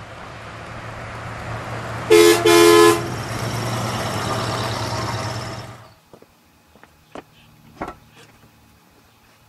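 A 1960 Dodge Dart Phoenix convertible with a 318 V8 driving past, its horn tooting twice in quick succession about two seconds in. The engine and road sound builds, then cuts off abruptly about six seconds in.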